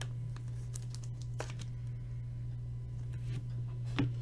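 Faint clicks and rustles of a trading card being handled and slid into a clear plastic top loader, then set on the table, over a steady low hum.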